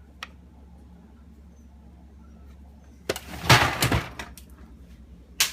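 Ice cubes dropping from a Kenmore French-door refrigerator's door dispenser, clattering for about a second midway, with a sharp click near the end.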